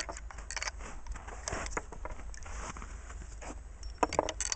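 Brass .30-06 cartridges clicking and scraping against metal as they are thumbed one at a time into the internal magazine of a Remington 700 bolt-action rifle through its open action, with a quick run of sharper clicks near the end.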